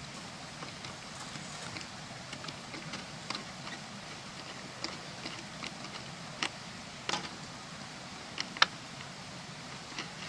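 Scattered small clicks and taps of wires, connectors and a handheld tester being handled at an electric-fence charger box, at irregular spacing with a few sharper clicks in the second half, over a steady background hiss.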